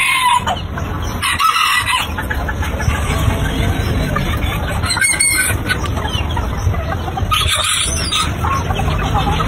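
Chickens clucking, with a rooster crowing in short calls at the start, about a second and a half in and near the end, over a steady low rumble.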